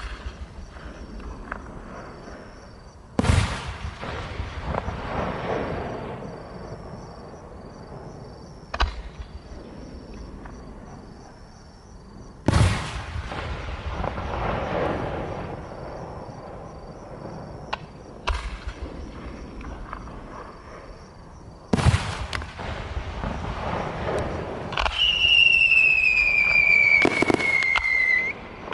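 Aerial firework shells bursting with loud bangs every few seconds, each followed by crackling and a rolling rumble. Near the end a firework whistle sounds for about three seconds, falling in pitch.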